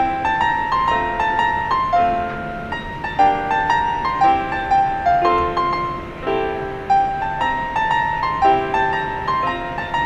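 Background piano music: a steady run of piano notes.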